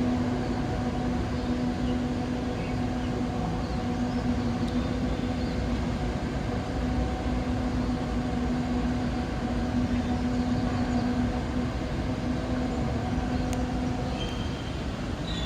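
A steady low droning hum: one held tone with a few fainter overtones above a continuous rumble, the tone stopping about fourteen seconds in.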